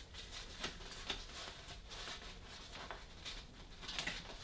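Faint handling noise: canopy fabric rustling, with a few light clicks and taps as the crossbar is clipped onto the wagon canopy's tent-style poles.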